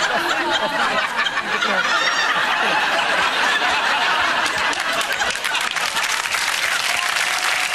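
Studio audience laughing and applauding. The laughter is strongest in the first couple of seconds, then gives way to steady clapping.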